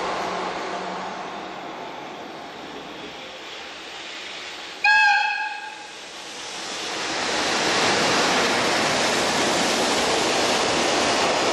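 EF210 electric freight locomotive hauling a container train: its running noise fades, then a short single-tone horn blast about five seconds in, the loudest sound here. After it the noise of the train and its container wagons passing close swells and stays loud.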